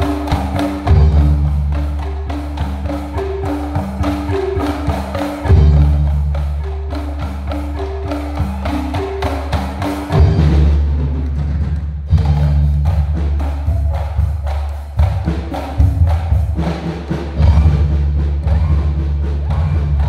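Live rebana percussion ensemble playing: frame drums and percussion under a repeating melody of short pitched struck notes, with deep ringing strokes every few seconds. After about ten seconds the melody drops out and the drumming becomes denser.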